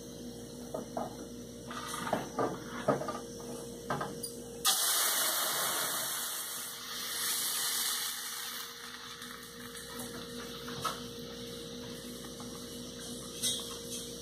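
Blended green salsa poured into hot oil in an aluminium pan: a loud sizzle and spatter starts suddenly about five seconds in, then settles after a few seconds into a quieter steady sizzle. A few light knocks and clicks come before the pour.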